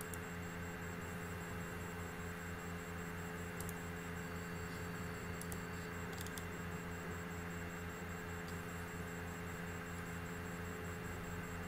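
Steady electrical hum with a low buzz under an even hiss, and a few faint clicks about a third and halfway in.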